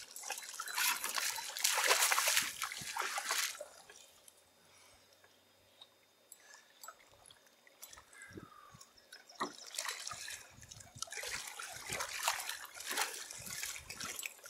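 Water splashing and sloshing in irregular bursts, loudest about one to three seconds in and again in the last few seconds: a hooked fish thrashing at the surface as it is played and brought to the net in shallow lake water.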